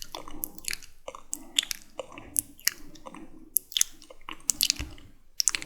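Close-miked wet mouth sounds for ASMR: sticky lip smacks and tongue clicks in an irregular series, over soft breathy noise.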